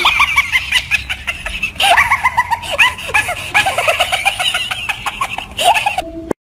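High-pitched cackling laughter, short rapid bursts strung together in several long runs, cutting off abruptly about six seconds in.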